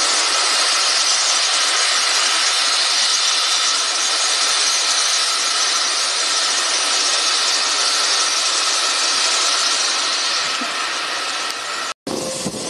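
Steady loud hiss of steam blowing from the open cylinder drain cocks of Bulleid West Country class steam locomotive 34092 as it moves slowly in. The hiss eases a little after about ten seconds and is cut off briefly near the end.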